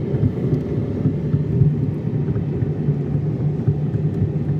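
Low, steady rumble of a car moving on the road, with road and wind noise.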